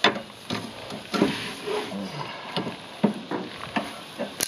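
Metal tongs rubbing a paper towel across hot gas-grill grates, a scratchy scraping broken by sharp clacks of the tongs striking the bars about every second or two.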